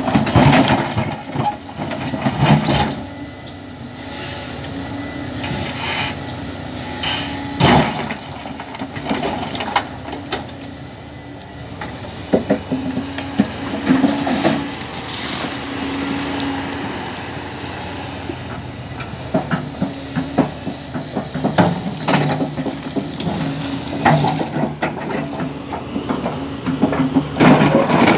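Hyundai HX480L excavator's diesel engine working under load, its note rising and falling, with repeated knocks, crashes and scraping of the steel bucket against quarry stone.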